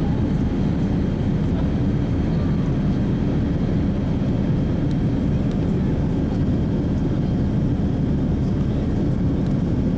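Boeing 787 Dreamliner's engines at climb power just after takeoff, heard from inside the cabin as a steady low rumble.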